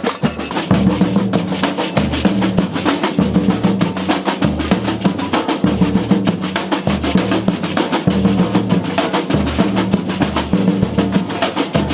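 Percussion music: fast, dense drumming with a pulsing low bass part underneath.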